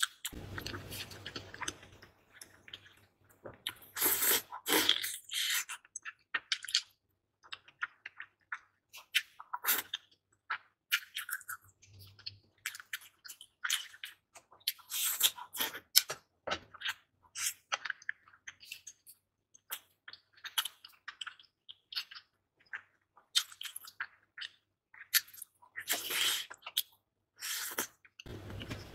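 Close-miked eating sounds: wet chewing and small crunches in irregular clusters, with short pauses between bites.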